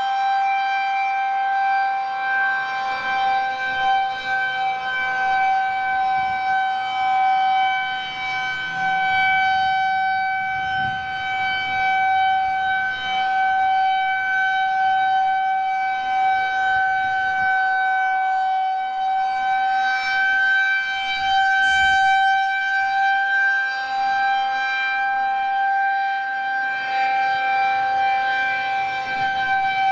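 Federal Signal 2001-130 electronic warning siren sounding a steady alert tone in a routine test, its pitch held level without rising or falling.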